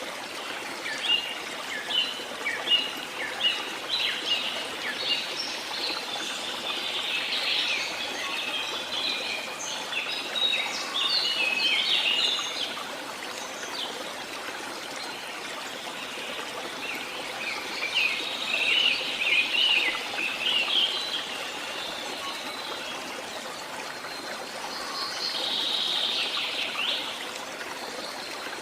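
Songbirds chirping and singing in bursts, thickest about a second in, around ten seconds in, around nineteen seconds in and again near the end, over a steady hiss of a running stream.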